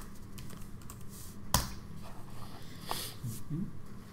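Computer keyboard keys clicking as a command is finished, with one sharp, much louder key press about a second and a half in.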